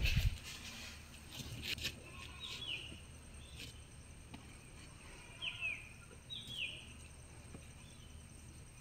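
A bird calling with short falling chirps, often two in quick succession, repeated every second or two. A low thud right at the start and a few light clicks come from clay roof tiles being handled and set in place.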